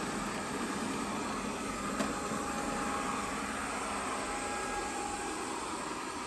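GleeU GRS1 robot vacuum running with a steady whirring hum, with one brief click about two seconds in.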